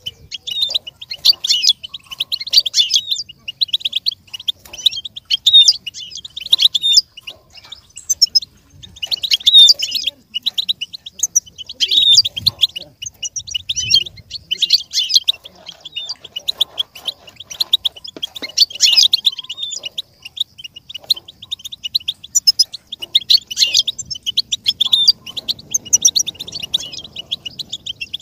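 European goldfinch singing: fast twittering phrases a few seconds long, separated by short pauses.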